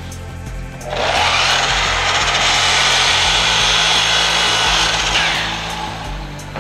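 Makita miter saw (chop saw) starting up and cutting through a wood board. The blade's noise rises as the motor spins up about a second in, holds steady through the cut for about four seconds, then fades as the blade winds down. Background music plays underneath.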